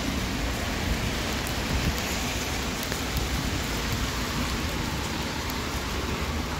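Heavy typhoon rain falling steadily on a wet street and pavement, an even hiss that holds without let-up.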